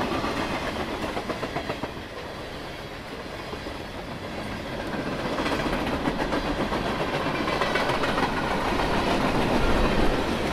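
Freight cars of a passing train (tank cars and boxcars) rolling by close up: steel wheels clicking and clacking on the rails over a steady rumble, growing louder toward the end.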